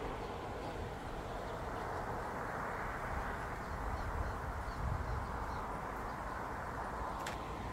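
Steady outdoor background noise, a continuous low rumble and hiss with no distinct source, and one sharp click near the end.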